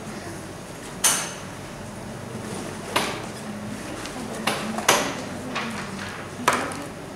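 Handling noise as a laptop is brought up onto a desk and opened: about five sharp knocks and clatters, the loudest about a second in and near the middle, over a low steady room hum.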